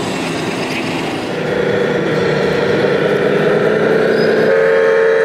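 Remote-controlled model trucks running, a steady mechanical hum that grows louder and takes on a steady humming tone about a second and a half in, over the background noise of an exhibition hall.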